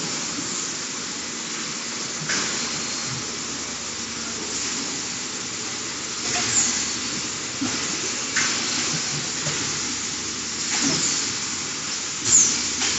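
Bottled-water production line running: a steady hissing machinery din, with short clacks every couple of seconds and brief high squeaks.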